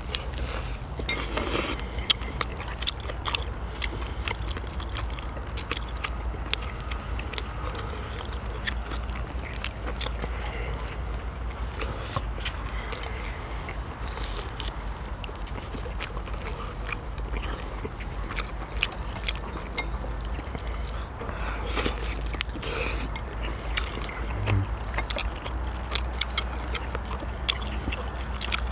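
People eating marinated beef short ribs and noodles: chewing and biting, with many small clicks and scrapes, over a steady low hum.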